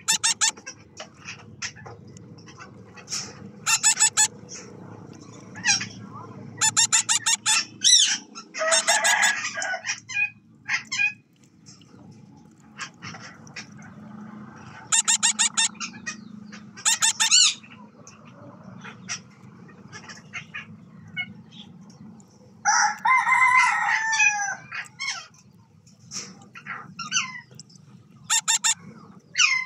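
Birds calling: repeated bursts of rapid, pulsed harsh calls, with a longer, wavering call about eight seconds in and another about twenty-three seconds in, over a faint steady low hum.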